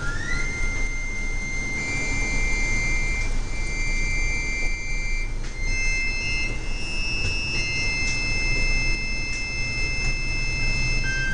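Korg analogue synthesizers (Monotribe, Monotron and Volca Keys) playing improvised electronic loop music: a sustained high-pitched buzzy tone that glides up at the start and then steps between a few held pitches, over a dense, noisy low layer.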